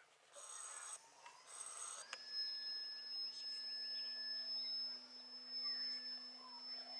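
Electric outrunner motor (AXI 2820-14) and folding propeller of an RC glider starting up about two seconds in and running at a steady pitch, a thin high whine over a low drone. Two brief bursts of hiss come just before it.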